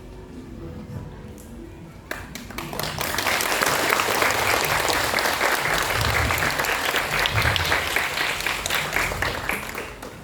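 Audience applauding, starting about two seconds in, swelling to a steady full clapping and dying away near the end.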